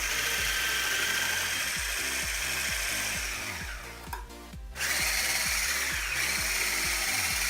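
Electric hand mixer beating eggs and sugar, running steadily. It stops briefly about four seconds in, then starts again.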